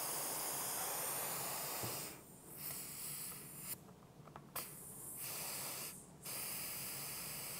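Air hissing out of a mountain bike tyre as the valve is held open to deflate it: a steady hiss for about two seconds, then stopping and starting in several shorter spurts.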